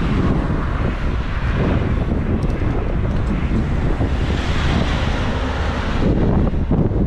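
Heavy wind buffeting the microphone of a camera moving through traffic, a steady low rumble. About four seconds in a brighter rush of hiss swells up, then cuts off suddenly about two seconds later.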